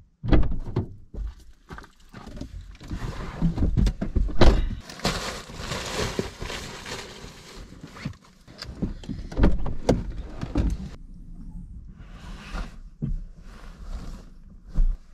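Bags, pillows and bedding being packed into a car's seats, heard from inside the cabin: rustling of fabric and plastic with repeated thumps and knocks, and a sharp thump near the end.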